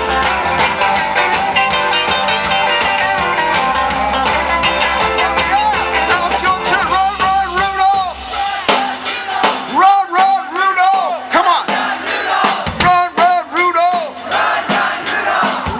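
Live band playing amplified rock-style music with electric guitar. About halfway the bass drops out, leaving a lead line of short rising-and-falling notes repeated over and over.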